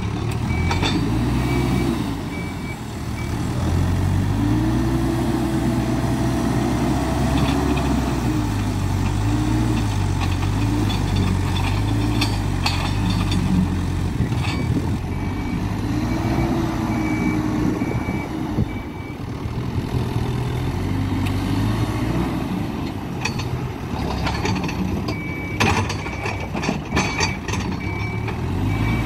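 Hidromek 102B Alpha A5 backhoe loader's diesel engine running and revving up and down under load, with its reversing alarm beeping in three stretches: near the start, about halfway, and near the end. Occasional sharp knocks sound over it.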